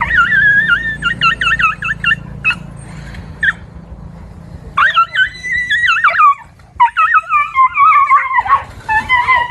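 Dogs whining and yelping in high, wavering cries. One burst of quick cries comes at the start, then longer, denser whines from about five seconds in, ending in drawn-out howl-like cries.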